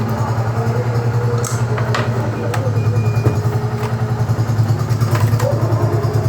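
A steady low hum with a fast pulsing beat, like a motor running, under a few light clicks and clatter of plastic parts as a laptop's cover is pried loose.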